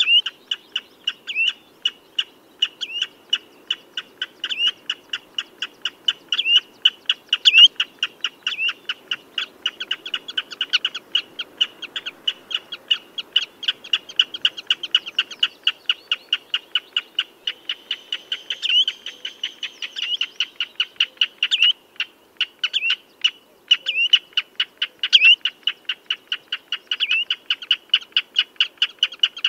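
Common redshank calling: a fast, even run of short sharp notes, about four a second, with louder notes that slide down in pitch breaking in every second or two.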